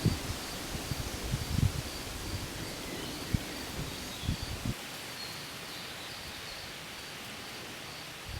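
Outdoor ambience: a steady hiss with irregular low thumps and rumbles during the first five seconds. A faint, high chirp repeats in short bursts throughout.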